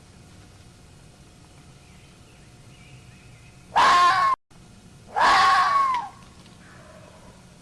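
Two loud, hoarse fox screams, each under a second long, their pitch rising and then falling, about four and five seconds in.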